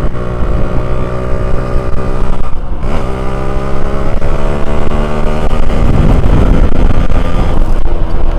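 Yamaha RX-King's two-stroke single-cylinder engine running loud, with a break and a rise in pitch about three seconds in and another change about six seconds in.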